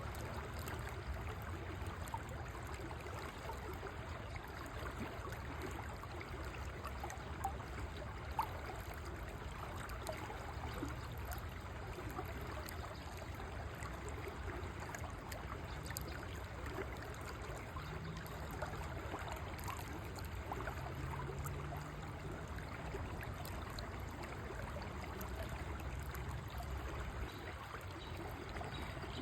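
River water flowing steadily, a continuous even rush of water.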